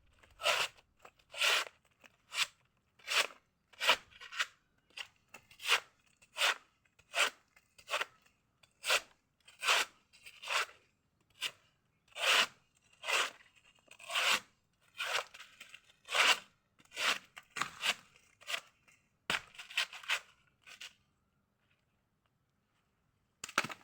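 Repeated chopping strokes of a blade cutting into a banana tree trunk, each a short crunching hack, about one a second, stopping about 21 seconds in, with one more stroke near the end.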